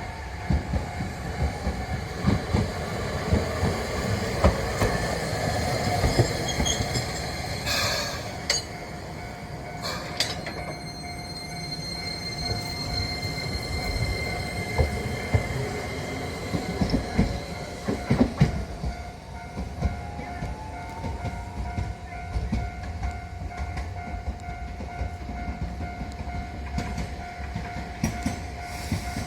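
A rail vehicle running over a level crossing: a low rumble with the clatter of wheels over the rail joints and track, joined by a steady high tone and, a little past the middle, a rising motor whine.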